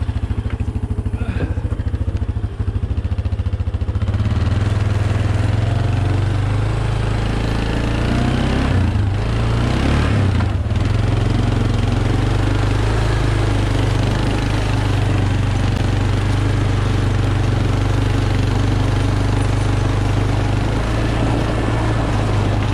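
ATV engine idling, then from about four seconds in running louder under load as the quad tows a fallen tree limb by a chain.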